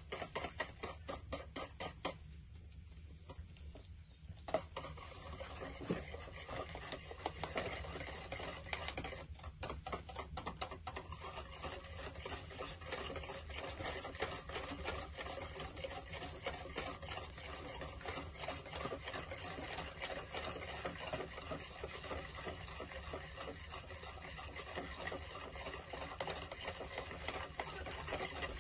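A utensil beating or stirring food in a bowl: a fast, steady run of small clicks and scrapes, sparser for the first few seconds.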